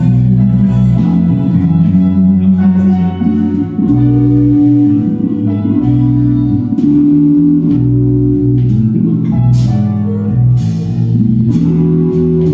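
A small live band playing together: upright piano and electric guitar through an amplifier over a bass line, with light percussion strokes.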